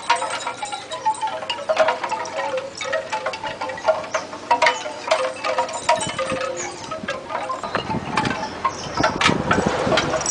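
Metallic chimes tinkling in irregular light strikes, with a ringing tone that hangs on between them. About eight seconds in, a low rustling and scraping joins for a couple of seconds.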